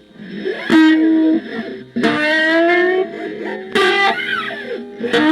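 Guyttarbaix, a homemade electric guitar/bass, played in single plucked notes that ring out, with a fresh pluck every second or so.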